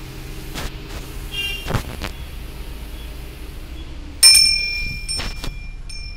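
A small metal bell struck once, ringing with clear high tones that fade over about a second, with a fainter ring just after. A few light knocks come before it, over a low background rumble.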